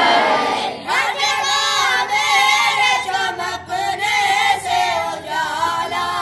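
A few boys singing a prayer together on a wavering melody, coming in about a second after a loud group response from the assembly fades away.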